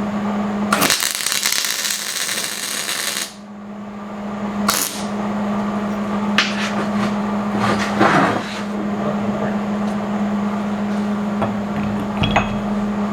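Arc welder tacking steel stobs onto a hardy tool: a crackling arc of about two and a half seconds near the start, then shorter tacks around five and eight seconds in. A steady electrical hum runs underneath, and a few sharp metal clicks come near the end.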